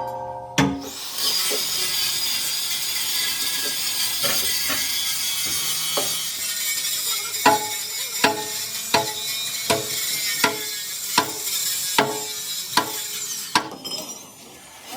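Steel-fabrication shop noise: a steady hiss, joined about halfway through by sharp ringing metal strikes, about one every three-quarters of a second, until shortly before the end.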